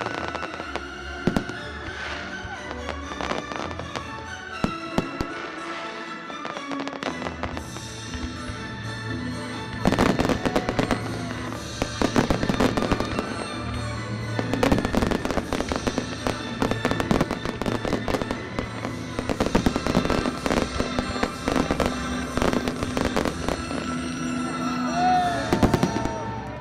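Aerial fireworks bursting and crackling over music. The bangs and crackle grow much denser about ten seconds in and stay thick to the end.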